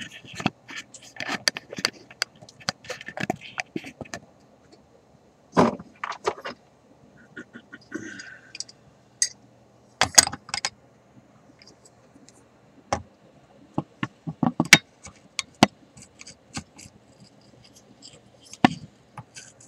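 Irregular small clicks, taps and light scrapes of metal hand tools being handled while working on the wire of a tube console's FM tuner.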